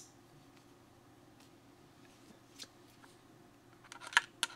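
Quiet room tone with a sharp click at the start, then a quick run of light clicks and taps near the end as the steel hex shank of a bit-holder handle is pushed into a cordless impact driver's quick-release chuck.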